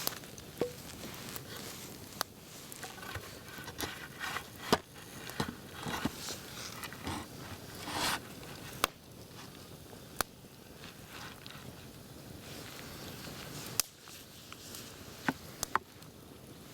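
Campfire crackling: irregular sharp pops and snaps of burning wood, with a few longer rustling noises in the first half.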